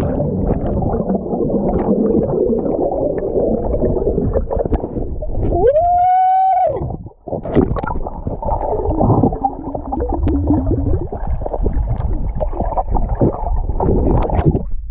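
Underwater sound picked up by a submerged action camera: a muffled rumble of moving water with bubbling and crackling as swimmers move around it. About six seconds in, a single pitched tone rises and holds for about a second.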